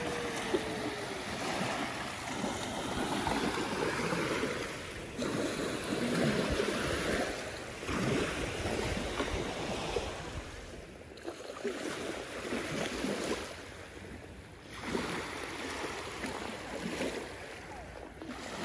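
Small lake waves washing onto a sandy shore, in repeated washes that swell and ebb every second or two.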